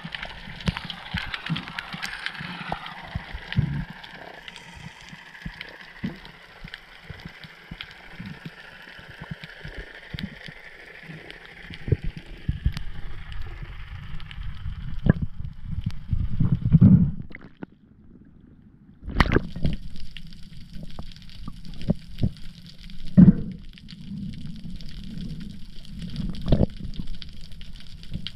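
Muffled underwater sound through a diving camera's housing: water moving and gurgling, with a steady low rumble and many irregular knocks and thumps. The sound drops almost to nothing for about a second around two-thirds of the way through, then comes back.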